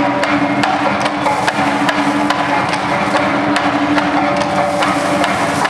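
Singkil dance music: sustained gong tones under sharp wooden clacks in a steady rhythm, about two a second, from bamboo poles being clapped together and knocked on the floor.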